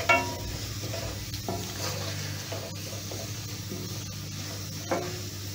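Sliced onions sizzling and frying in oil in a non-stick pan while being stirred with a wooden spatula, sautéed to golden brown. A brief louder pitched sound comes right at the start, with smaller ones about a second and a half in and near the end.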